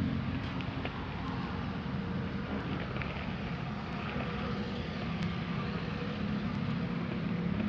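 Steady low engine hum under a haze of outdoor background noise, with a few faint clicks.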